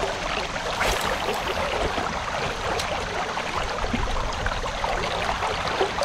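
Steady rush of moving river water, babbling and splashing with a fine crackle, over a low rumble.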